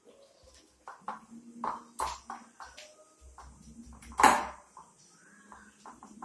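A fork tapping and scraping against a bowl while butter and powdered sugar are mixed together: a run of irregular clicks and knocks, the loudest about four seconds in.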